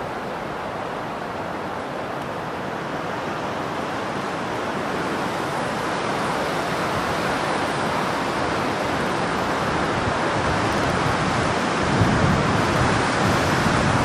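Wind blowing through dry marsh reeds, a steady rushing that builds gradually and gusts harder near the end, with low rumbling wind buffeting on the microphone.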